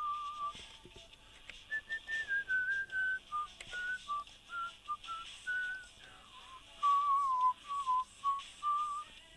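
A person whistling a tune, one clear note at a time, stepping up and down through a melody with short breaks between phrases. The notes sit higher through the middle and drop lower near the end.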